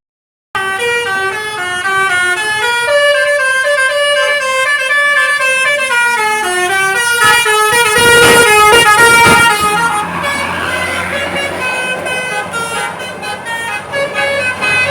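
A bus's telolet basuri melody horn playing a rapid tune of short stepped notes. About ten seconds in, engine and road noise rise and the horn fades.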